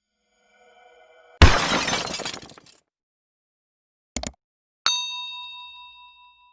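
Intro sound effects: a sudden loud crash like breaking glass that dies away over about a second, a short double click, then a sharp metallic strike that keeps ringing as a bright chime and fades out.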